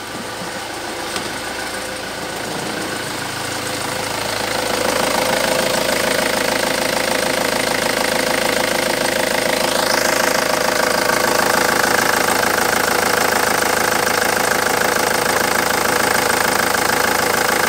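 Ford Transit 2.0 Duratorq DI four-cylinder turbo-diesel (code D3FA) idling steadily. It grows louder over the first few seconds, then holds an even note.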